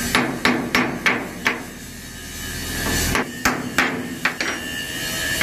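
Hammer striking steel on a barge's steel deck, knocking off old welded-on strips: quick runs of sharp metallic blows, about four a second, with a pause of about a second and a half in the middle.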